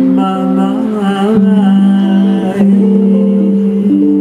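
Live woman's voice singing a slow ballad phrase with vibrato over electric guitar chords. After about a second and a half it settles into long, steady held notes.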